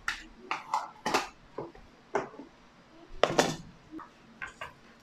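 Wooden spoon knocking and scraping against a ceramic baking dish as butter is tapped off it: a string of irregular knocks, the loudest a short clatter about three and a half seconds in.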